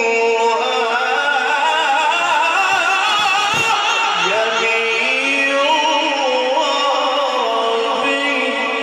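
A man reciting the Quran in the melodic mujawwad style, drawing out one long ornamented phrase with a wavering, gliding pitch.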